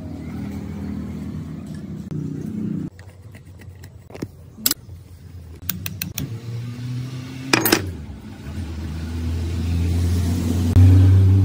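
A power tool's electric motor runs with a steady hum and cuts off about three seconds in. A few sharp metal clicks and taps follow while a twisted steel rod is worked into a rusty shaft bore of the sewing machine. The motor then starts again and runs louder toward the end.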